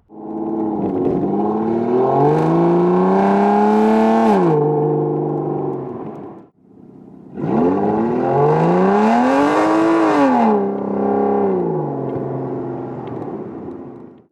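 Aston Martin DB9's 6-litre V12 exhaust, fitted with straight de-cat pipes, revving up: the pitch climbs steadily for about four seconds and drops back. After a short break it climbs and falls again, then settles to a steady note and fades out.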